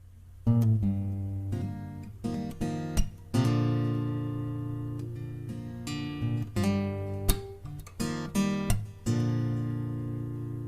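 Acoustic guitar strumming slow chords in a sparse pattern, each strum struck sharply and left to ring out, starting about half a second in.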